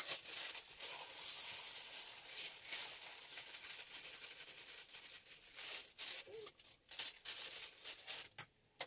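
Cornflakes poured into a plastic cereal dispenser: a steady dry rustling pour from about a second in to about five seconds, then a few scattered rustles and light clatters as the flakes settle.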